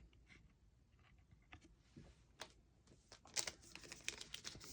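Faint handling of trading cards: quiet at first, then a quick run of soft clicks and rustles about three seconds in as the cards are flicked through.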